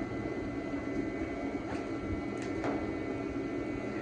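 Steady mechanical hum holding several fixed tones, with a few faint light clicks about two seconds in.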